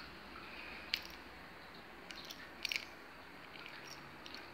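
Small clicks and light clinks of a Škoda Felicia car key and its metal Audi keyring fob being turned over in the hand: one click about a second in, a short cluster of clicks near the middle, and a faint one near the end.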